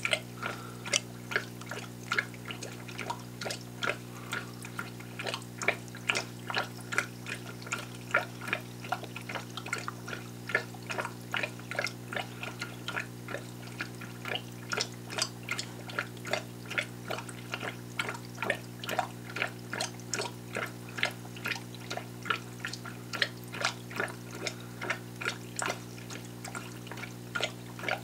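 Air bubbler in an aquarium side breeder box gurgling, with irregular bubble pops, about two to three a second, over a steady low hum. This is the airlift that draws water, and baby clownfish with it, through a tube from the main tank into the breeder.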